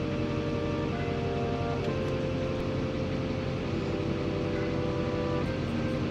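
Soft background music of held chords that change every second or two, over a steady low rumble.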